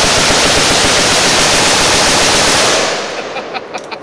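Rapid rifle fire from several shooters at once, the shots running together without a break. About three seconds in it thins out to a handful of separate shots.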